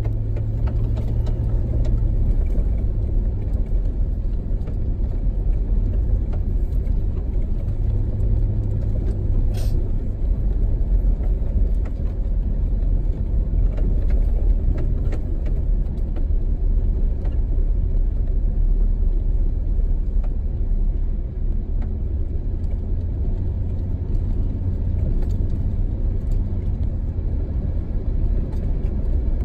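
Steady low rumble of a 4x4's engine and drivetrain, heard from inside the cab while driving, with a single sharp click about ten seconds in.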